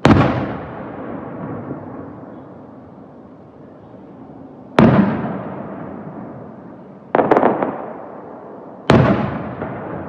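Aerial firework shells bursting: four loud booms, at the start, about five seconds in, a quick cluster of cracks a little after seven seconds, and one near nine seconds. Each is followed by a long rumble that slowly fades.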